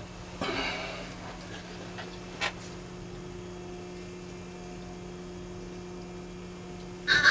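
Steady low electrical hum with a faint second tone, broken by a brief whisper about half a second in, a single sharp click around two and a half seconds, and a louder whisper at the very end.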